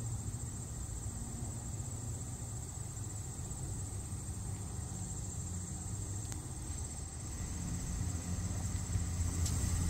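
Insects, likely crickets, trilling steadily in a high band, over a steady low rumble that grows slightly louder near the end.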